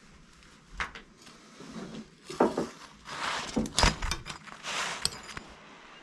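A spatula knocking and scraping as food is turned on a wood stove top: a sharp knock about a second in, then a few seconds of scraping and clatter with several sharper knocks.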